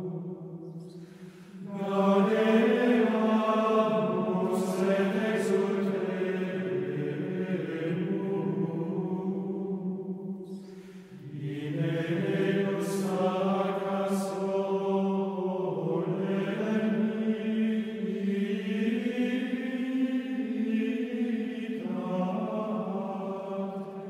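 Male voices singing slow plainchant, a melody of held notes moving in small steps. Two long phrases, with short breaths about a second in and about ten seconds in.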